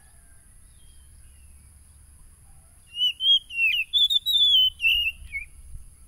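Oriental magpie-robin (kacer) singing one loud whistled phrase of quick gliding, warbling notes, starting about three seconds in and lasting about two and a half seconds.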